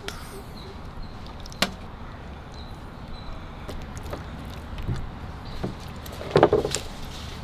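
Metal skewers clicking and clinking against a steel plate as marinated chicken pieces are threaded on, with a sharp click near two seconds in and the loudest clatter about six seconds in.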